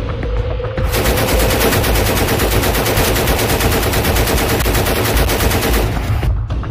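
Light machine gun in sustained automatic fire: one long unbroken burst of rapid shots that starts about a second in and stops about a second before the end.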